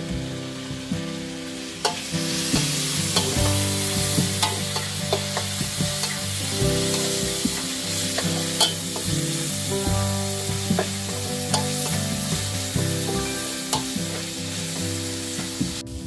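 Food stir-frying in a metal wok over a gas burner: a steady sizzle, with a metal spatula repeatedly scraping and clanking against the pan. The sizzle grows louder about two seconds in.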